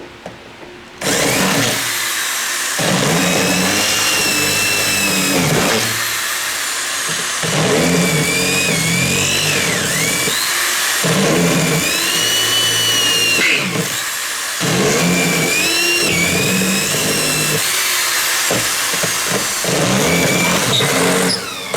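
Electric drill drilling out old pop rivets, in six runs of two to three seconds each with short pauses between. The drill's whine wavers and dips in pitch as the bit bites into each rivet.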